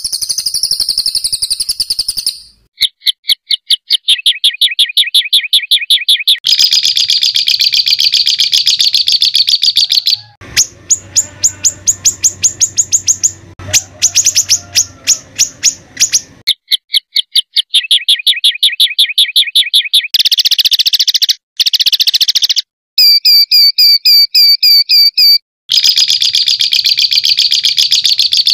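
Recorded songbird song of rough, rapid 'tembakan' trills: fast runs of evenly repeated sharp notes, in spliced stretches of a few seconds that change pitch and speed and cut off abruptly, played as masteran for training cage birds.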